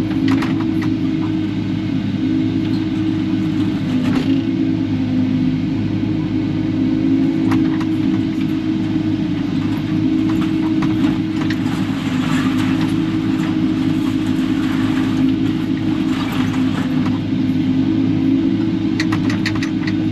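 Kubota KX080-4 excavator's diesel engine running steadily with a constant drone, with scattered knocks and scrapes from the bucket working through scrap metal and debris.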